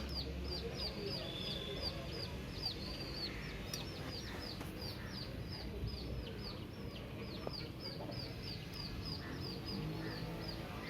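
A bird chirping over and over: short, high notes that drop in pitch, about three a second and steady throughout.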